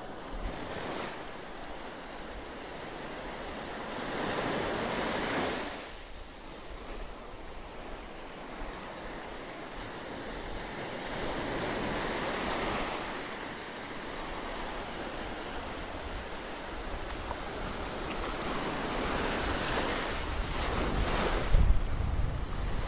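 Sea surf breaking on a sandy beach, the wash swelling and falling back every several seconds, with wind gusting on the microphone near the end.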